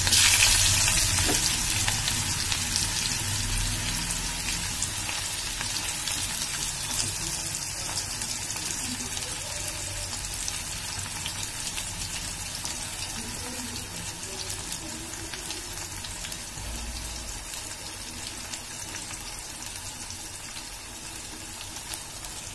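Sliced onions sizzling and crackling in hot oil with cumin seeds in a steel pan, loudest at the start and slowly dying down as the oil cools around them.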